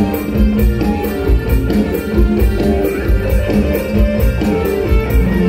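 Live mor lam band music played loud, with heavy bass and a steady beat.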